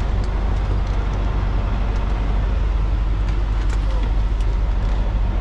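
Semi truck's diesel engine running at low speed during slow parking, heard from inside the cab as a steady low rumble, with a few faint high ticks.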